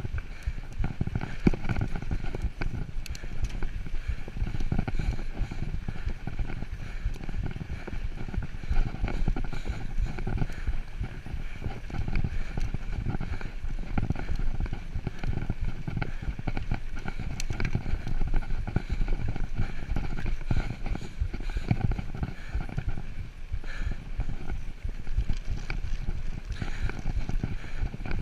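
Mountain bike riding over a rough dirt and gravel trail: tyres crunching and the bike rattling and knocking irregularly over the bumps.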